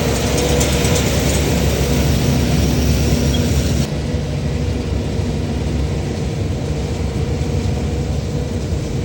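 Tractor engine running steadily while baling hay with a round baler. About four seconds in the sound loses some of its upper hiss.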